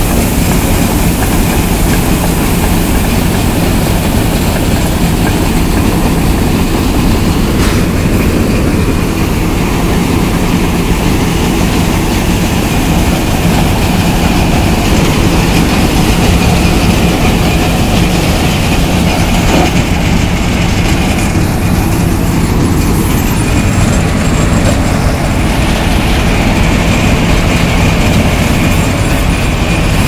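Balkar tractor-driven combine harvester running at close range with its unloading auger pouring grain into a trailer: a loud, steady machine rumble that holds constant throughout.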